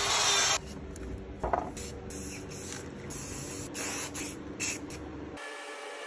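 A loud power tool runs and cuts off about half a second in. Then paint is sprayed in a series of short hissing bursts.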